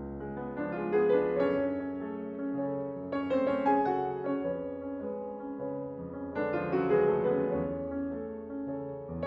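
Background piano music: a slow piece of sustained chords, with strong chords struck about a second in and again around six and a half seconds in, each dying away.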